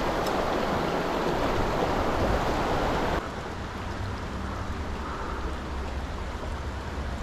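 Small mountain creek rushing over rocks, a steady rush of water; about three seconds in it drops suddenly to a softer rush.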